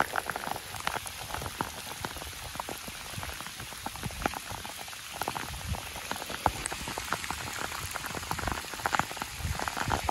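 Steady rain falling on the open river around a kayak, with many separate drop hits close by.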